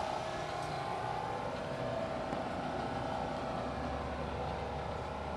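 Steady hum of a running motor, even throughout, with a deeper low hum coming in about three and a half seconds in.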